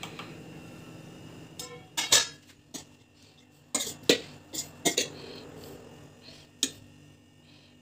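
A steel spoon clinking and scraping against a stainless steel bowl of cooked rice: a string of sharp metallic clinks over several seconds, the loudest about two and four seconds in. Before the clinks, a steady low hum.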